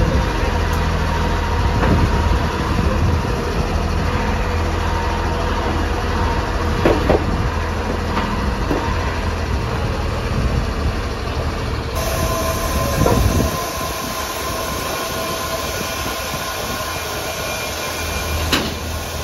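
Engine of a wheeled rotary drilling rig running with a steady low rumble as the rig climbs steel loading ramps onto a trailer, with a few metallic clunks. The low rumble drops away about two-thirds of the way through.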